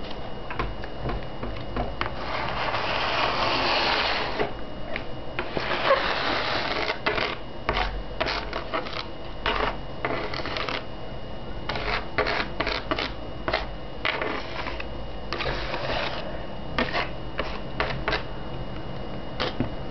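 Hand scraping and tapping a small object along a wooden board, working a trail of dark granular material into line: a few longer scrapes among many short clicks and taps.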